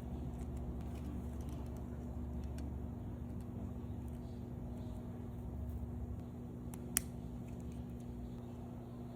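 Small plastic Lego minifigure pieces being handled, with faint scattered clicks and one sharp click about seven seconds in, over a steady low hum.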